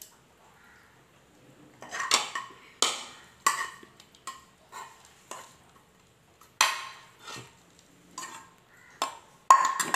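A spoon scraping and clinking against a non-stick frying pan as cooked okra stir-fry is scraped out onto a plate: about a dozen short, sharp clinks and scrapes at irregular intervals, starting about two seconds in.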